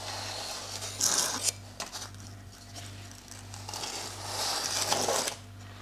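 Baking paper crinkling and crisp baked meringue scraping as wooden spatulas slide a meringue layer onto a cake. It comes in two noisy rustling bursts: a short one about a second in and a longer one from about three and a half to five seconds.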